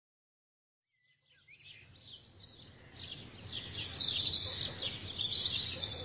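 Many birds chirping over a steady background hiss, fading in about a second in and growing louder.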